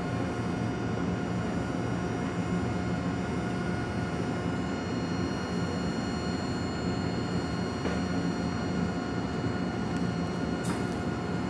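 Steady electrical hum and whine of a stationary Eizan Electric Railway train standing at the platform, with several held tones over a low drone; a brief click comes near the end.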